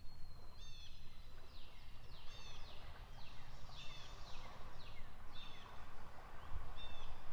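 Songbirds calling: short high chirps repeated about once a second, over a low steady rumble.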